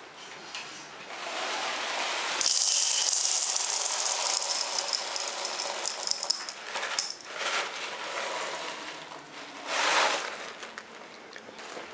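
Dry cereal poured from a cardboard box into a ceramic bowl: a dense rattle of many small pieces lasting several seconds. Then scattered rustles, with a short louder rustle near the end as the box is handled.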